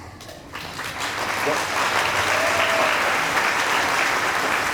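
An audience applauding, the clapping swelling up about half a second in and holding steady.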